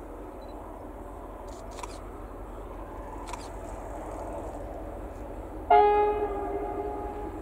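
Faint rumble of an approaching train growing slowly, then about six seconds in a diesel locomotive's horn sounds a two-note chord, loud at first and easing off over under two seconds.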